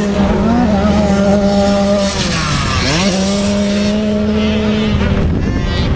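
Motocross bike engine running hard at high revs. The pitch drops and climbs back up about halfway through as the throttle is rolled off and opened again, then falls once more near the end.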